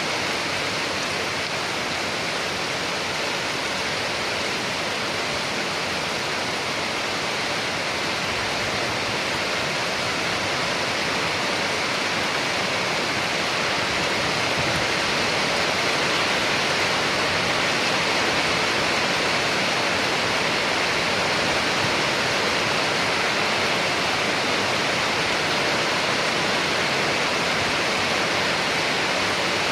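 Steady heavy rain, a dense even hiss with no separate drops or thunder standing out.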